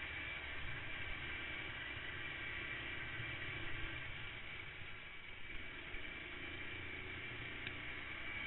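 Rally kart driving at speed on a dirt track: its engine running under a steady wash of wind and rumble on the onboard camera's microphone, dipping slightly about five seconds in.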